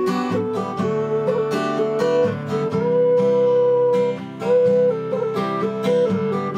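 Whistle playing a Scottish folk melody over acoustic guitar accompaniment, with one long held note about three seconds in.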